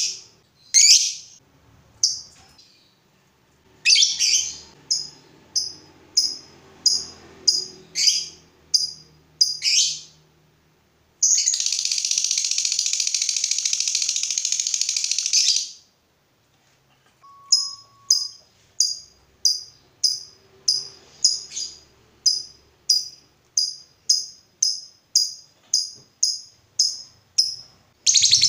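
Lovebird calling: a series of sharp, high chirps, then near the middle one long, rapid chattering trill of about four seconds, the 'ngekek'. After a short pause come quicker, evenly spaced chirps, about two a second, and another long trill starts right at the end.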